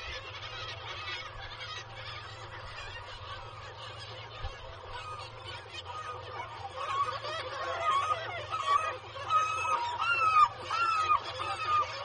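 A black-legged kittiwake nesting colony calling: a constant din of many birds. From about seven seconds in, louder, repeated nasal calls come in quick series. A steady low hum sits underneath.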